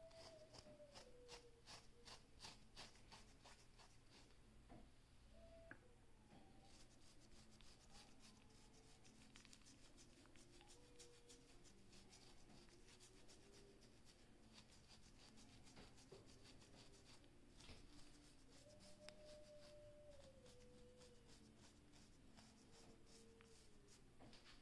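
Faint, quick scratching of a fine-tooth comb raking through short, coarse hair against the scalp, several strokes a second, loosening dandruff flakes. The strokes pause briefly about four seconds in, then carry on.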